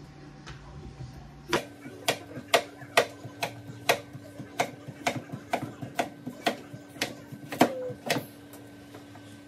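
Kitchen knife chopping vegetables on a cutting board: sharp knocks at about two a second, starting about a second and a half in.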